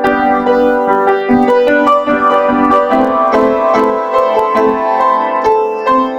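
Piano music: a steady run of struck notes with chords sustained under them.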